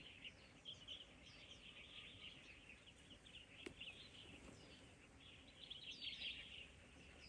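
Faint chorus of birds chirping, with many short calls, some slurring downward. A single sharp click comes about three and a half seconds in.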